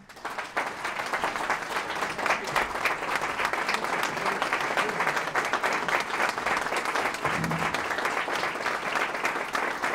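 Audience applauding steadily, a dense run of many hands clapping at once.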